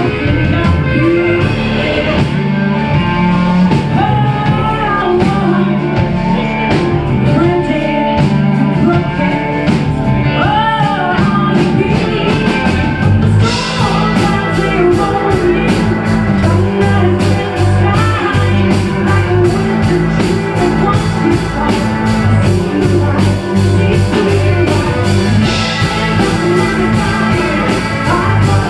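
Live blues-rock band playing an instrumental break: a lead line with bending notes over bass and drums. About halfway through, the drums pick up a busier beat with steady cymbal strokes.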